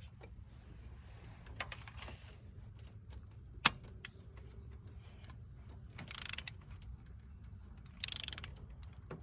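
A 3/8-inch-drive click-type torque wrench ratcheting as a spark plug is torqued down. There are scattered sharp metallic clicks, the loudest a little over a third of the way in, and two short rasps of the ratchet near the end.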